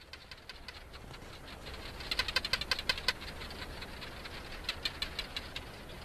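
Chorus of barking geckos calling: many rapid, sharp clicking chirps, densest about two seconds in and again near five seconds. The males call to attract females.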